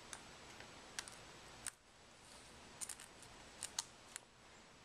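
About eight faint, sharp ticks and clicks, scattered irregularly: small shards of cracked screen glass being pried and snapped off a Samsung Galaxy S3's frame.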